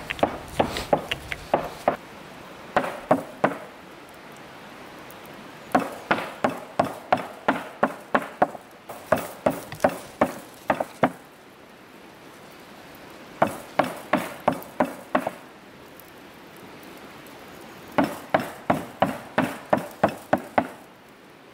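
A hand-held stone pounding food on a wooden cutting board: sharp knocks about three a second, in several runs with short pauses between them.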